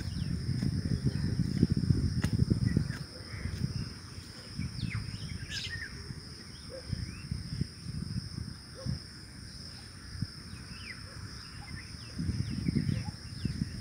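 Rural ambience of insects droning steadily in two high tones, with a few short bird chirps scattered through, most around five to six seconds in. A low rumble on the microphone fills the first three seconds and comes back near the end.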